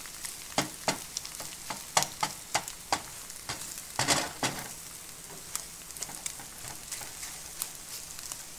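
Eggs and spinach sizzling in a frying pan, with irregular scrapes and taps of a utensil stirring them against the pan, a busier run of them about four seconds in.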